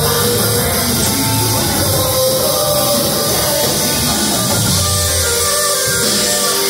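Live band playing loud amplified rock music: bass guitar, electric guitar, drums and vocals sung into microphones, continuous throughout.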